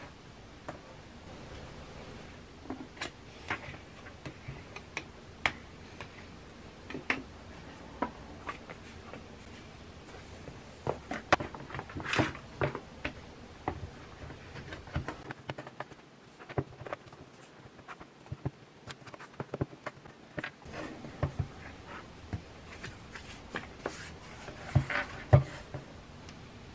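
An iPad Pro and a fabric-covered folio case handled on a desk: scattered light clicks, taps and rustles as the case is fitted on and its cover folded, with a cluster of sharper clicks near the end.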